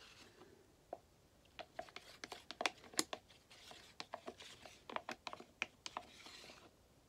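Light, irregular clicks and taps of a wooden stirring stick scraping the last black acrylic paint out of a plastic cup, with a faint crinkle of plastic.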